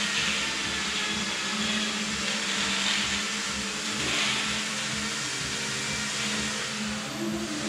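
Steady whirring machine noise with a continuous low hum, like a motor-driven machine running without a break.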